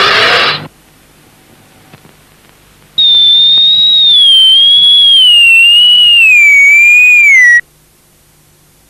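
A short, loud, noisy burst right at the start. Then, about three seconds in, a cartoon sound-effect whistle sounds a single high tone that wavers slowly downward for about four and a half seconds and cuts off abruptly.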